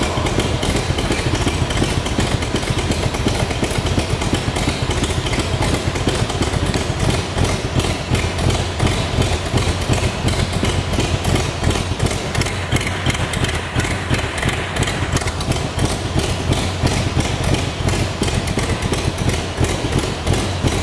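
1949 Allard's engine idling steadily just after being started, an even, rapid beat of firing pulses.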